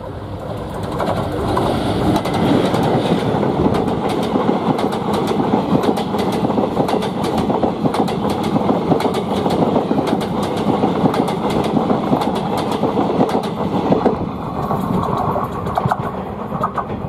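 Train wheels clattering over the rail joints of the track, with a rapid irregular run of clacks over a steady rumble. It builds over the first couple of seconds and eases off about 14 seconds in.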